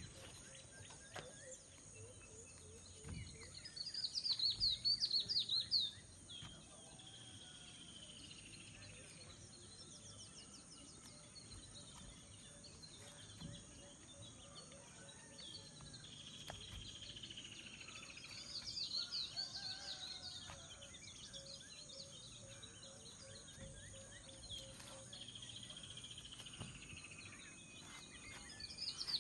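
A bird singing a repeated phrase: a rapid run of high chirps followed by a long falling whistle, given about three times. Under it is a faint, steady high-pitched background buzz.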